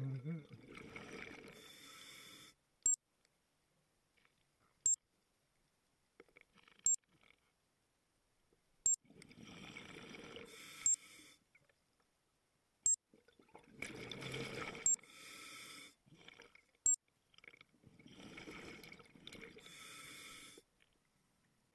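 Scuba diver breathing through a regulator underwater: about four breaths, each a burst of hissing intake and bubbling exhaust, with quiet pauses between. A short sharp click sounds every two seconds.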